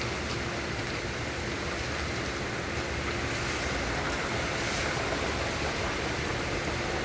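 Steady rain falling, an even, unbroken hiss with a faint steady hum beneath it.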